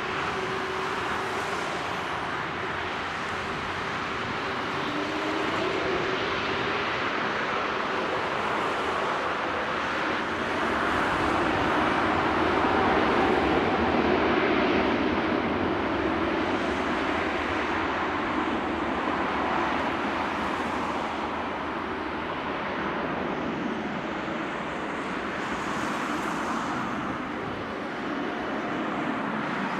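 Airbus A350 jet engines (Rolls-Royce Trent XWB) running: a steady rushing noise with a faint whine, swelling to its loudest about halfway through and easing off after.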